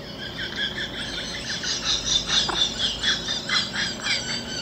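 High-pitched chirping: a fast run of short repeated notes, about four a second, growing louder about a second in.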